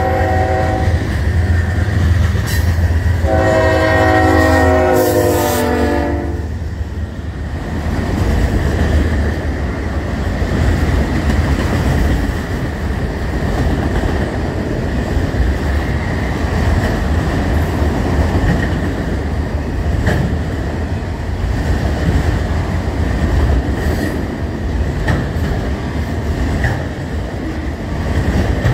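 A CN freight locomotive's multi-chime air horn sounds a short blast, then a longer one about three seconds in. After that comes the steady rumble and clickety-clack of long strings of freight cars, grain hoppers and autoracks, rolling past close by.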